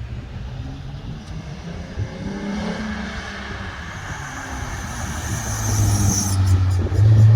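Dodge Durango's brakes squealing with a high-pitched tone as the vehicle slows. The squeal grows louder and stops abruptly a little after six seconds in, over the low drone of the engine, which gets louder near the end. The squeal is the sign of worn brakes due for new pads and rotors.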